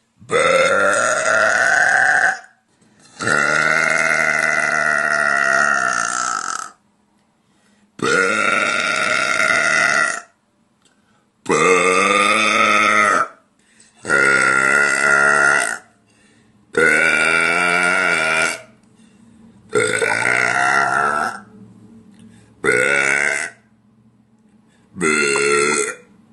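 A woman belching, nine long pitched burps one after another, each lasting one to three seconds, with short pauses between them.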